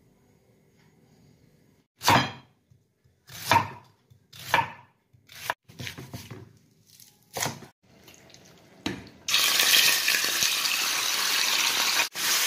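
A knife slicing through a red onion onto a wooden cutting board, in several separate cuts about a second apart. Then, about nine seconds in, a sudden loud, steady sizzle as seasoned chicken breast pieces go into hot oil in a frying pan.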